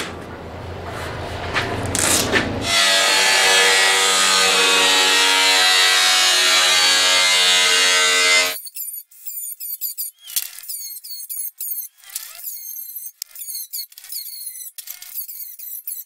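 Sheet-metal roof panel being cut with a power tool: the tool runs steadily for about six seconds and cuts off abruptly. A fast, irregular run of short, high scraping strokes on the metal follows.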